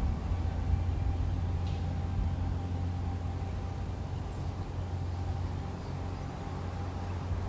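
Radio-controlled speed boat's motor whining as it runs on the lake: a thin, steady high tone over a low, steady rumble.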